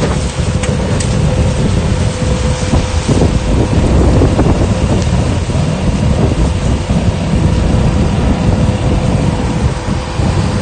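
Strong wind buffeting the microphone, a continuous low rumble with a faint steady hum underneath and a few sharp clicks near the start.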